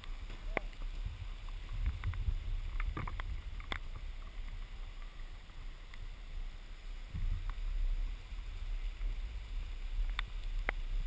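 Low, uneven wind rumble on a body-worn camera's microphone as a bungee jumper dangles and swings upside down on the cord, with a few sharp clicks.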